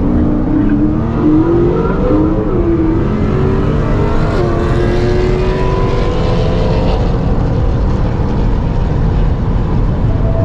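Ford Explorer's twin-turbo EcoBoost V6 at full throttle from a roll, heard from inside the cabin: the revs climb, drop back at an upshift about two and a half seconds in and again about four and a half seconds in, climb once more, then the engine note fades as the driver lifts off, leaving steady road and wind noise.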